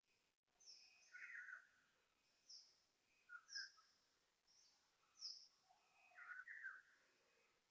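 Faint bird-like chirps: short high chirps about once a second, with lower, fuller calls in between, over a quiet background hum. The uploader takes these for fake bird noises, played back rather than made by live birds.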